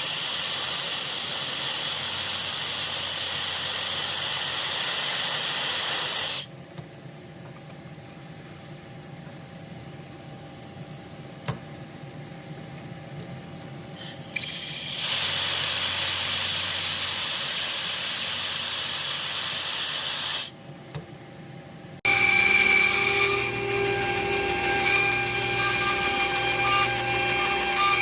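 Woodworking power tools running in several clips that start and stop abruptly. The longer runs are a loud, steady hiss. Near the end comes a different machine sound with a hum and steady tones.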